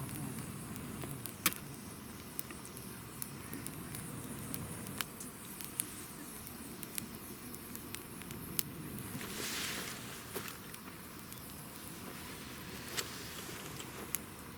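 Wood fire burning with a steady low rumble of flames and sharp, irregular crackles and pops from the burning wood, with a brief hiss about two-thirds through.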